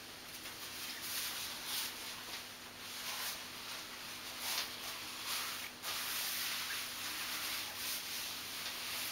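Adidas nylon track pants rustling in irregular swishes as the wearer shifts about and his hands slide into the pockets and over the fabric.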